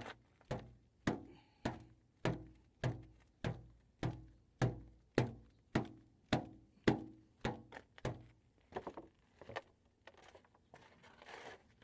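A steady series of dull thunks, about fourteen of them, evenly spaced a little over half a second apart, stopping about eight seconds in. A few lighter, irregular knocks follow.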